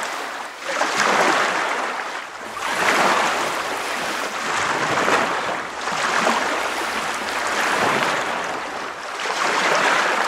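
Ocean waves washing in, a rushing sound that swells and falls back about every two seconds.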